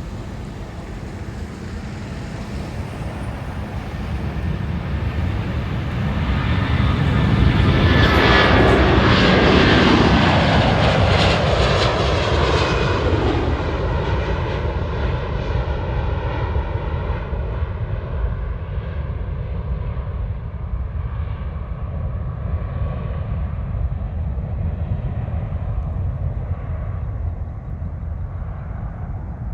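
An airplane flying past: its engine sound builds, is loudest about eight to ten seconds in with the pitch falling as it goes by, then fades away.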